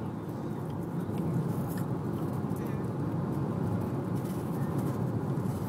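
Steady car road and engine noise inside the moving car's cabin, with scattered faint crunchy clicks of a dog chewing an apple.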